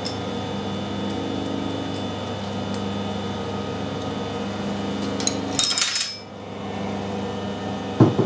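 Metal clanks and clicks as the lathe tailstock is locked down on the bed: a quick clatter about two-thirds of the way through and a single sharp knock near the end, over a steady machine hum.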